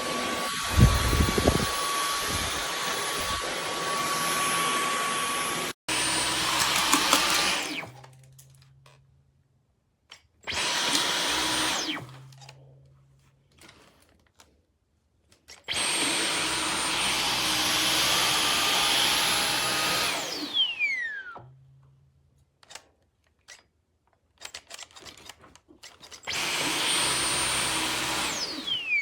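Dyson V15 Detect cordless stick vacuum running in several bursts of a few seconds each, switched off and on between them. At some stops the motor's high whine falls away as it winds down, and the gaps hold only faint clicks of handling.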